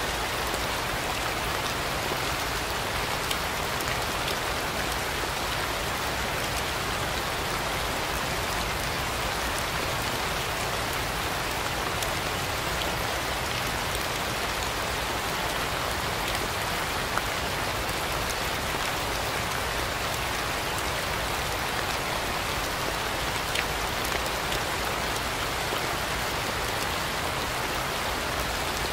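Steady rain falling, with occasional single drops ticking out a little more sharply.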